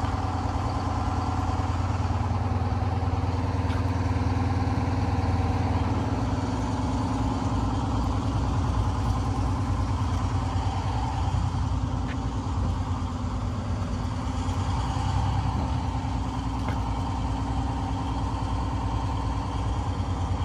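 Mudcat horizontal dredge's engine running steadily under load.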